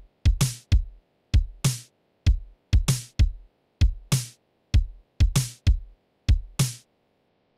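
A programmed drum-machine pattern of just a kick and a snare sample, playing a simple beat of sharp separate hits with no reverb tail. The samples are dry sounding and don't pack a lot of punch. The pattern stops shortly before the end.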